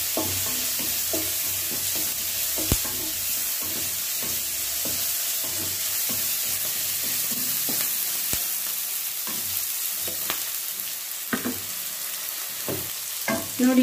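Chopped onions, green chillies and curry leaves sizzling steadily as they fry in oil in a steel kadai. A wooden spatula stirs and scrapes against the pan with scattered knocks, and there are a couple of sharper clicks.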